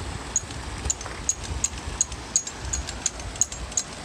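Rushing floodwater with wind buffeting the microphone, and a steady series of short sharp high ticks, about two or three a second.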